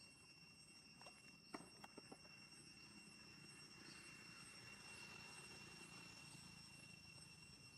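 Near silence: a faint steady high-pitched tone, with a few soft clicks in the first two seconds.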